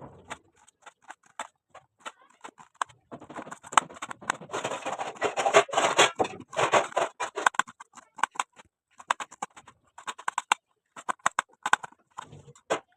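Knife cutting through a cabbage on a chopping board: a run of quick, crisp strokes. They come thick and loudest from about three to eight seconds in, then more spaced out.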